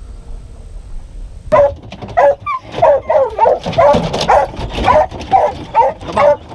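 Hunting hounds barking in quick succession, short pitched calls about twice a second, starting about a second and a half in.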